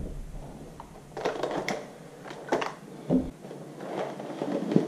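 Rustling and scraping with a few sharp clicks as a modular motorcycle helmet is handled and taken off.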